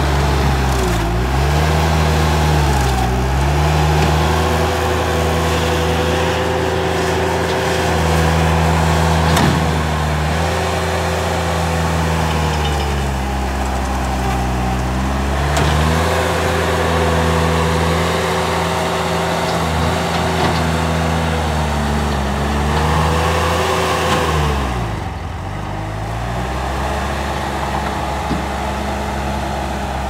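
Bobcat T320 compact track loader's diesel engine running at high revs, its pitch sagging and recovering a few times as it lugs under the load of the bucket digging and pushing dirt. It runs a little quieter near the end.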